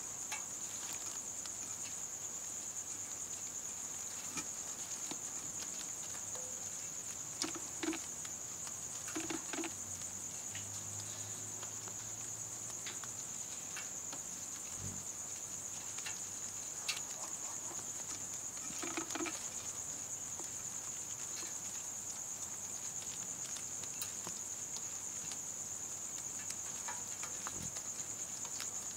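Night insects singing a steady, unbroken high-pitched trill. A few brief louder sounds come through it, the clearest about a third of the way in and again just past halfway.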